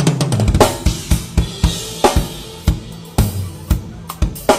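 Drum kit played fast: quick strings of single strokes across the snare and toms, punctuated by bass drum kicks and accented hits with cymbals.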